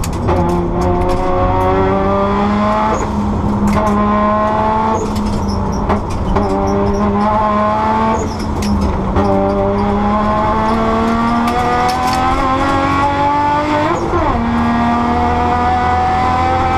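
Competition-prepared R32 Nissan Skyline's engine pulling hard, heard from inside the stripped cabin: its pitch climbs through each gear and falls at every upshift, several times over. Under it there is a steady rumble of tyres and road, with scattered sharp ticks.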